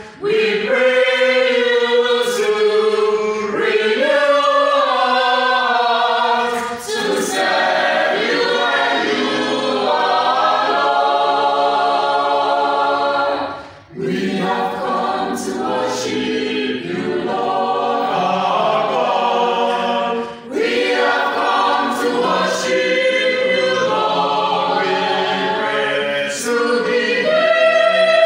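Choir of men's and women's voices singing together in harmony with long held notes, with brief breaths between phrases about 14 and 20 seconds in.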